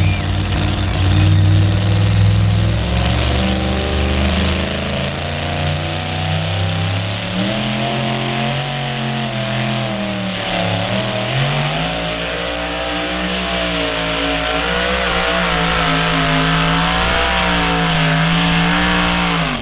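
Two-wheel-drive pulling truck's engine at full throttle as it drags a weight-transfer sled down the track. It is loud, and its pitch wavers and swings up and down as the revs change.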